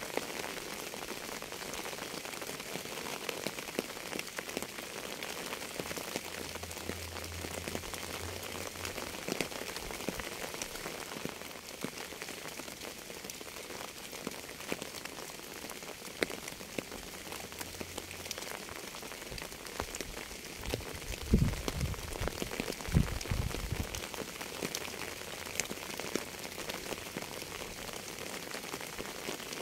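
Steady rain falling on a surface, a continuous hiss with many individual drop hits. Two short, low rumbles come about two-thirds of the way through and are the loudest moments.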